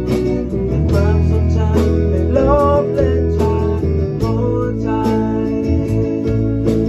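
A rock band playing live: electric guitar, bass guitar and drum kit, with drum hits over held bass notes and gliding guitar lines.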